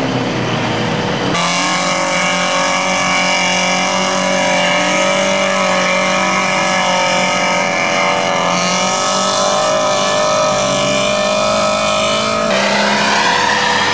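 Off-road 4x4's engine running hard at steady, high revs. The sound changes suddenly about a second in, and the revs climb near the end.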